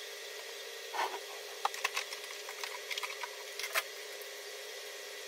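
Light clicks, knocks and rustles of things being handled in a wardrobe, a string of them from about a second in to near four seconds, over a steady background hiss.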